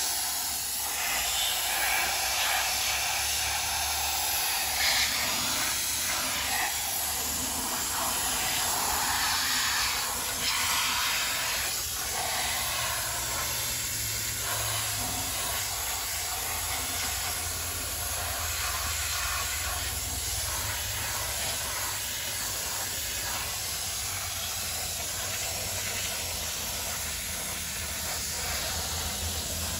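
Grant's handheld steam cleaner jetting steam onto a truck's wheel rim: a steady hiss.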